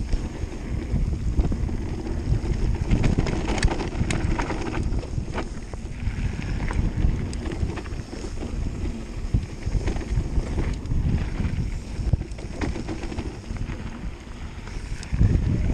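Wind buffeting a bike-mounted camera's microphone and mountain-bike tyres rolling fast over a dirt and gravel trail, with scattered clicks and rattles from the bike over the bumps.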